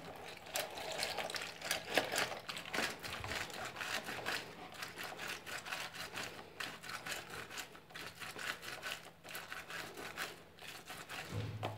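Orange half being twisted and pressed by hand on a ridged plastic citrus reamer: a continuous run of quick, irregular wet squishing and scraping of the pulp against the plastic cone.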